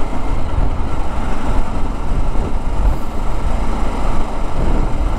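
Wind rushing over the microphone on a moving motorcycle, mixed with engine and road noise, as the bike cruises at a steady speed of about 45 to 50 km/h. It is a loud, steady rumble with no rise or fall in engine pitch.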